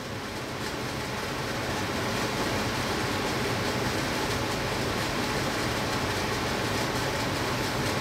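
Two-stage gas furnace running in low stage: burner lit, with the inducer motor and circulating blower going together as a steady rushing with a low hum. It rises a little over the first couple of seconds, then holds even.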